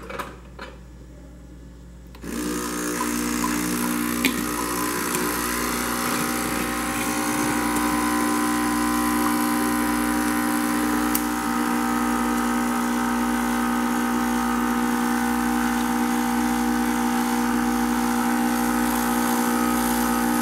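A few clinks of a cup, then about two seconds in a capsule drink machine starts pumping and brewing a tea capsule: a steady buzzing hum with a constant tone that runs on without change.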